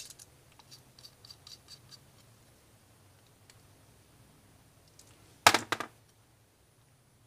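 Faint small metal clicks and scrapes of a screwdriver turning a main jet into a motorcycle carburetor body, with a short burst of sharp clacks about five and a half seconds in.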